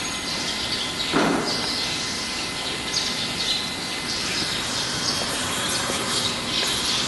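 Steady workshop background noise with scattered short high chirps and a faint steady whine, and a brief knock a little over a second in.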